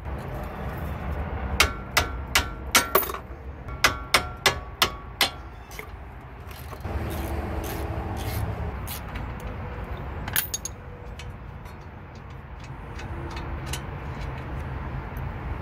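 A ratchet and socket working the front brake caliper bolts: a run of about ten sharp metal clacks over three or four seconds, another near ten seconds in, and rubbing and scraping of metal on metal between them as the bolts are undone and the caliper is worked free.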